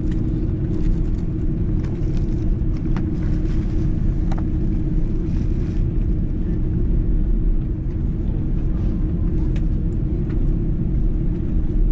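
Airbus A330-300 cabin while taxiing after landing: a steady low rumble of the engines at idle and the airframe rolling over the ground, with a constant hum.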